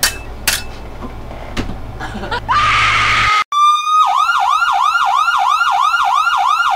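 An electronic emergency-vehicle siren in a fast yelp pattern, sweeping up and down about three times a second, starting about four seconds in. Before it come a few sharp clicks and a short hissing burst with a rising tone.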